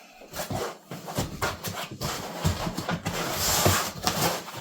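Handling of a large printer's shipping box and its packing: irregular knocks, scraping and rustling of cardboard and foam as the box is searched. The rustling thickens briefly a little past halfway.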